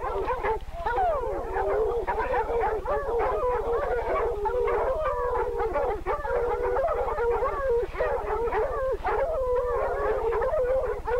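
Several hunting dogs baying and howling in overlapping voices, with no pauses, as they bay a hog. A steady low hum runs underneath.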